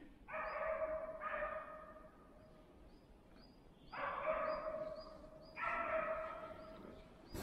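West Siberian Laika hunting dogs barking faintly in four runs of about a second each. To the hunter this is the sign that they have probably found moose and are holding them at bay.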